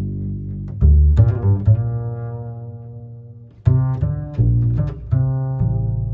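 Background music: deep, plucked-sounding notes that ring and die away, one after another.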